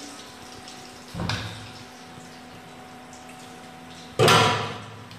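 Two sudden knocks in a kitchen: a moderate one about a second in and a much louder one near the end that dies away in about half a second, over a steady low hum.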